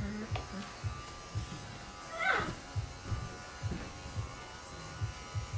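Pet stand dryer running with a steady hum, while a poodle puppy gives one falling whine about two seconds in.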